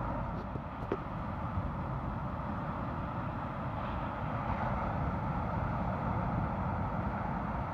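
Steady rush of ocean surf on a beach, swelling slightly about halfway through.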